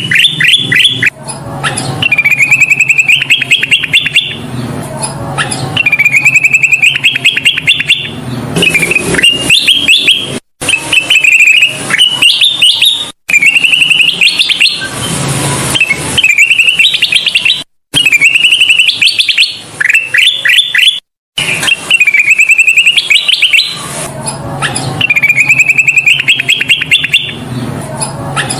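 Kutilang emas bulbul singing: a loud, repeated phrase of rapid trilled notes, coming every few seconds. The audio drops out briefly a few times where the recording is spliced.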